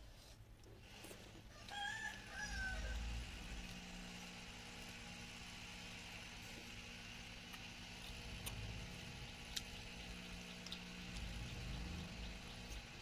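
A rooster crows once, about two seconds in, a call of just over a second. A steady low hum runs underneath, with a few faint clicks later on.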